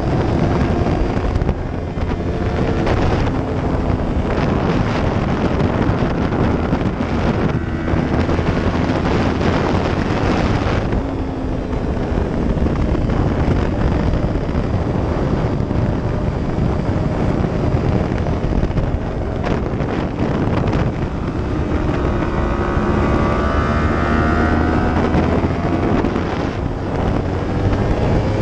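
A 2015 Yamaha R1's crossplane inline-four engine running at riding speed. Its pitch rises and falls as the throttle is rolled on and off through the bends. Heavy wind rush buffets the microphone throughout.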